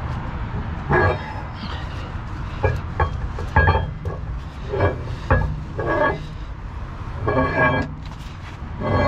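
A steady low rumble of heavy-vehicle engine or traffic, with about nine short knocks and clanks at uneven intervals as tools and parts are handled at a lorry's rear axle hub.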